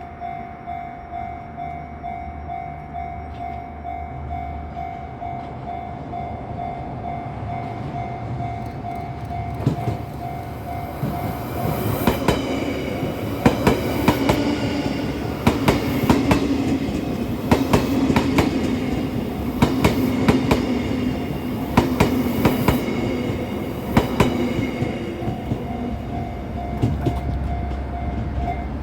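Level crossing warning bell ringing with a steady pulsing tone. About twelve seconds in, an Odakyu 60000 series MSE Romancecar electric train passes, its wheels clacking over the rail joints with a rumble and hum. The bell is heard again as the train clears, near the end.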